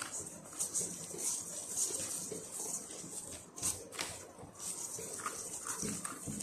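Soft yeast dough being kneaded by a plastic-gloved hand in a stainless steel bowl: irregular squelching, slapping and scraping, with a few sharper knocks against the bowl around the middle.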